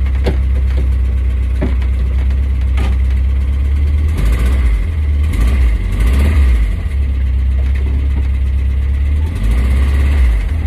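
Air-cooled flat-four engine of a 1979 VW T2 campervan running at idle, heard from inside the cab, its note wavering up and down between about four and seven seconds in.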